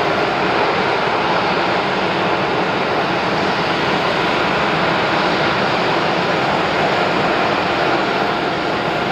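Twin-engine Airbus A320-family jet airliner landing and rolling out on the runway: steady jet engine noise with a faint high whine over it.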